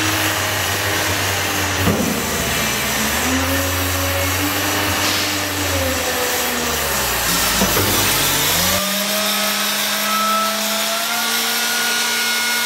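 Truck engine running with its hydraulic pump driving an arm-roll hoist that tips a container; the pitch slides up and down. About nine seconds in the deep rumble drops away, leaving a steadier, higher whine.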